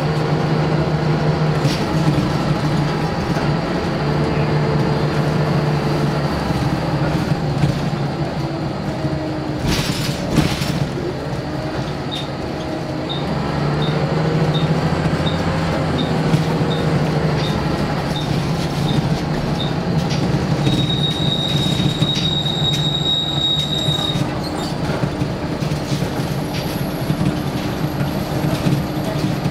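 Scania L94UB single-deck bus heard from inside the saloon, its nine-litre five-cylinder diesel pulling hard with the engine note rising and falling through the gear changes. A jolt or rattle comes about ten seconds in. A run of short high beeps, about two a second, follows, and then a steady high beep lasting a few seconds.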